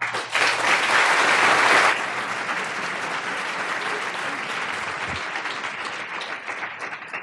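Large audience applauding, loudest for the first two seconds, then steadier and softer, dying away near the end.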